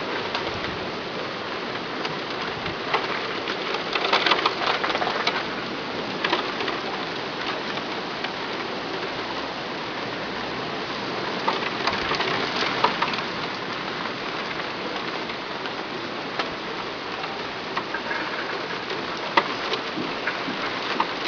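Heavy rain pouring down, a dense steady hiss with sharp drop ticks on nearby surfaces. It swells louder about four seconds in and again around twelve seconds.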